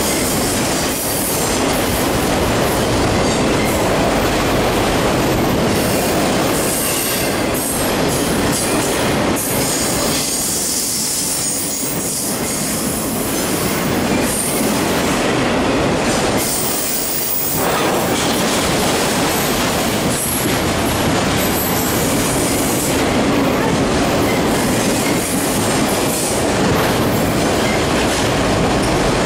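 Freight train of autorack cars rolling past close by: a steady, loud rumble and rattle of the cars and wheels on the rails, with high-pitched wheel squeal coming and going.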